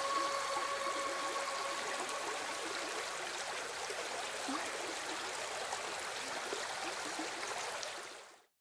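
Steady rushing noise like running water, with a faint two-note hum that dies away about a third of the way in. The whole sound fades out shortly before the end.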